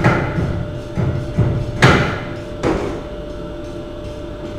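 Uneven hammer blows on a metal bell resting on a swage block, about five in the first three seconds, each with a short ringing decay. After that only a faint steady hum remains.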